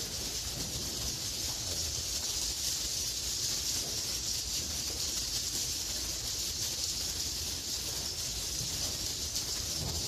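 Swiftlet calls filling the nesting room of a swiftlet house: a dense, steady high hiss with a fine flicker of tiny clicks running through it.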